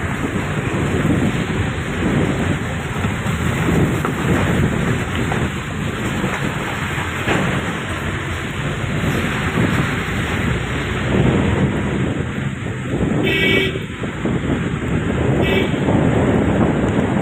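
Steady rumble of a moving vehicle, road and wind noise on a wet road. Two short horn beeps sound about 13 and 15 seconds in.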